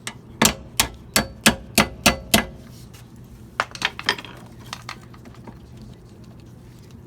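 Hammer striking metal: seven quick ringing blows at about three a second, then three or four lighter taps after a short pause.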